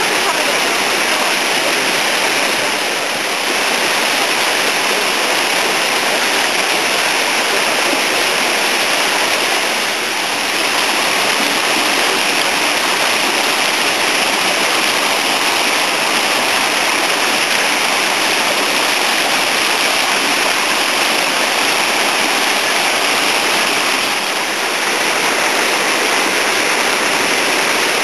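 Water of a fish ladder rushing and splashing down its pools, a steady loud rush.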